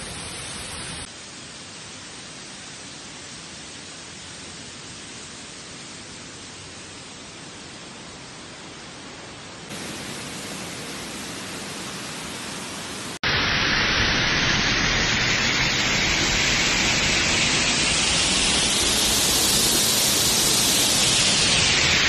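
Steady rush of falling water from a waterfall, heard as an even hiss. It jumps much louder at a cut about 13 seconds in.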